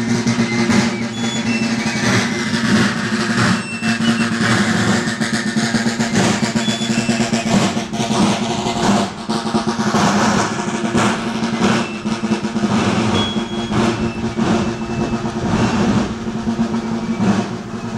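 A marching band of snare drums beating a fast march cadence with rolls.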